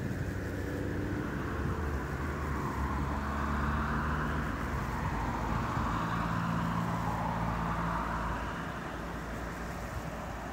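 A motor vehicle passing by: a steady low engine hum with road noise that swells to a peak a few seconds in and then fades away.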